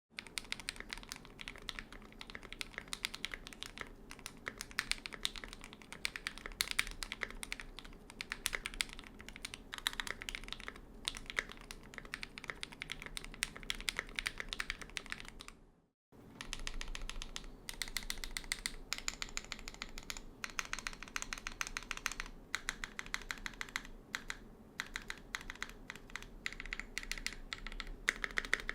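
Fast, continuous touch-typing on a Keychron Q1 aluminium mechanical keyboard that has been tape-modded and fitted with stock ABS double-shot keycaps: a dense run of quick key clicks and bottom-outs. The typing breaks off briefly about halfway through.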